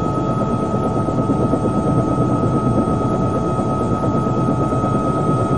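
Helicopter noise: a steady, dense rumble with a constant high whine running through it.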